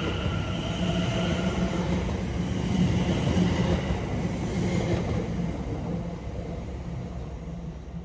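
Passenger train running past along a station platform: a steady rumble of wheels and carriages with a high whine over it for the first couple of seconds, loudest about three seconds in, then fading away.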